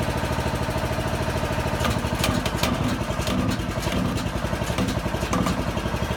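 Small engine running steadily, driving the hydraulic pump that jacks the piers to lift a settled porch. A few sharp clicks come about two seconds in.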